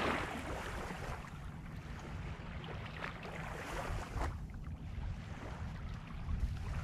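Wind rumbling on the microphone over water washing at the river's edge, with a louder noisy rush at the start and a few short splashy sounds later.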